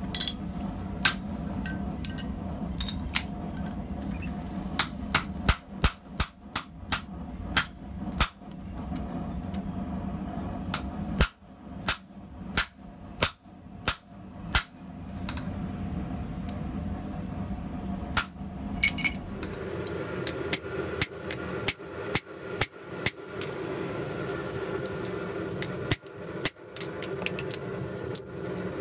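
Hand hammer striking a small piece of hot steel on a steel anvil block, forging a tiny ball-peen hammer head. The blows come in irregular runs with short pauses between, some quick and light, others hard and sharp.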